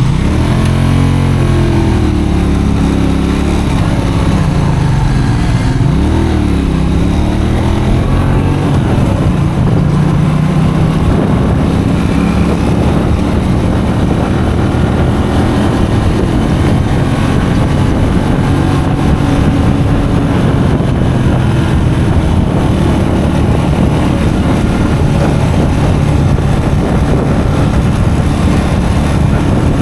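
Custom motorcycle engine running while riding. Its pitch rises and falls with the throttle for the first several seconds, then holds steadier.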